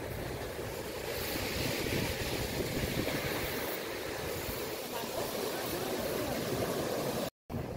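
Choppy sea water washing and splashing, with wind rumbling on the microphone. The sound drops out for a moment near the end.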